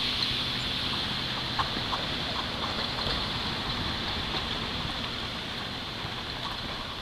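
Steady rushing hiss of a large fountain's spraying water, slowly fading, with a few faint short clicks in the first half.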